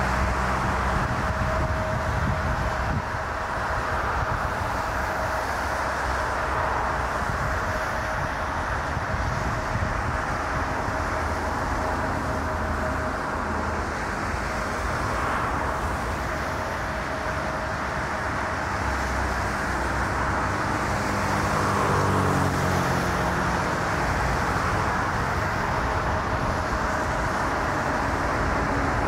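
Steady rush of road traffic on an Autobahn, with a faint steady tone over it. One vehicle passes about two-thirds of the way in, its pitch sliding as it goes by.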